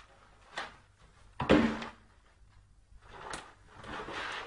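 A cardboard box being knocked and pushed about on a tile floor by a cat: a light knock, then a loud thud about a second and a half in, then scraping and rustling near the end.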